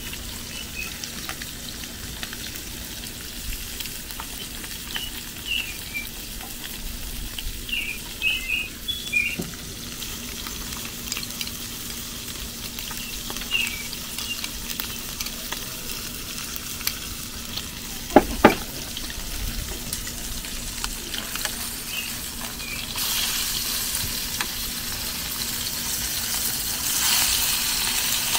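Carp pieces deep-frying in hot oil, a steady sizzle. There are a few short high chirps in the first third and two sharp knocks a little past halfway. The sizzle grows louder over the last few seconds.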